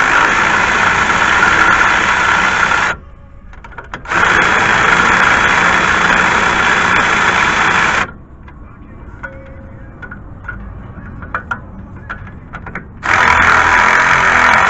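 Milwaukee cordless electric ratchet running in three steady whirring runs of about three to four seconds each, spinning a 12 mm nut off an upper ball joint bolt while the bolt is held from below. Light clicks and taps of the tool and socket in the pause between the second and third runs.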